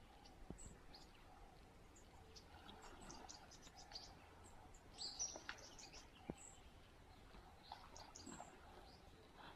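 Near silence of open-air ambience, with faint, brief high-pitched bird chirps scattered through it, the clearest about five seconds in.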